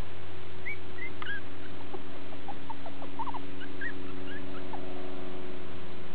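Parson Russell Terrier puppies about three and a half weeks old giving many short, high squeaks, most of them in the first five seconds, over a steady low hum.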